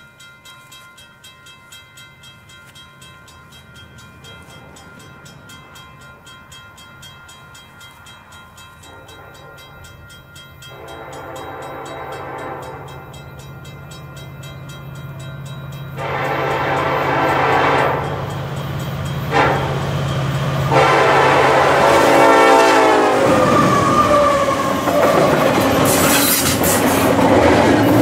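Approaching train's locomotive air horn sounding several blasts, growing louder. The last blast drops in pitch as the locomotive passes, and then comes the rushing rumble of the train going by.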